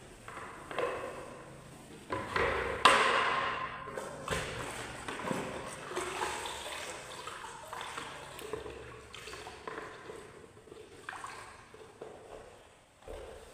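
A mop being dunked and swished in a plastic bucket of water, with irregular sloshing, splashing and dripping. A sharp knock about three seconds in is the loudest sound.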